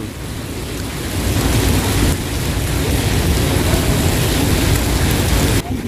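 Heavy rain falling on a flooded street: a steady, even hiss of rain with a deep rumble underneath. It breaks off briefly near the end.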